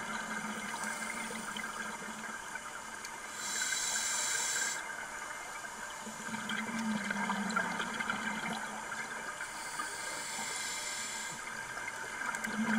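Scuba regulator breathing underwater: an inhale hisses about three and a half seconds in and again more faintly about ten seconds in, with the low bubbling of exhaled air between the breaths.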